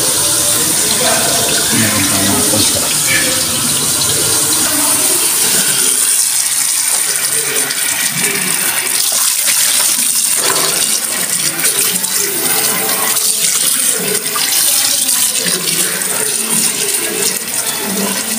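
Tap water pouring steadily into a stainless steel sink bowl, swirling and draining through the strainer.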